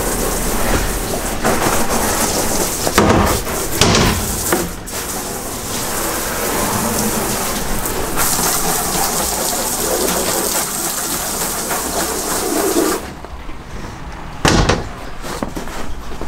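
Water spray from a hose wand hitting the plastic walls, tank and floor inside a portable toilet, rinsing it out after scrubbing. The spray cuts off about three seconds before the end, followed by a single knock.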